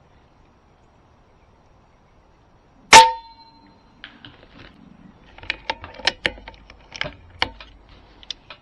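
A single sharp shot from a .25 calibre Kalibrgun Cricket PCP airgun about three seconds in, with a short ringing tone. A run of smaller sharp clicks and knocks follows over the next few seconds.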